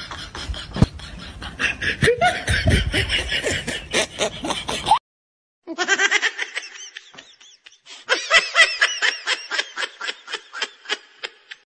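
Laughter sound effects: two separate laugh clips, one after the other, each a rapid run of ha-ha pulses. They are split by a brief silence about five seconds in.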